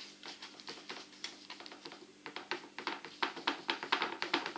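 Fingers patting and pressing a piece of bread dough into shape on a baking tray: a run of light taps that grows louder and quicker about halfway through.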